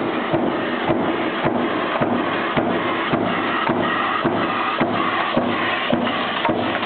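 Mechanical power press stamping copper key blanks from coil stock, fed by a strip feeder, with a regular stroke about twice a second over the steady running noise of the line.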